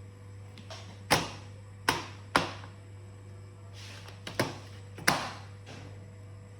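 Sharp clicks and taps on a laptop, five of them spread unevenly over a few seconds, with a few softer rustles between, over a steady low hum.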